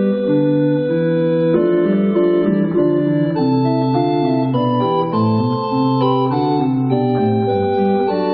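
Church pipe organ playing a slow piece in several parts: sustained chords that change every second or so over a moving bass line.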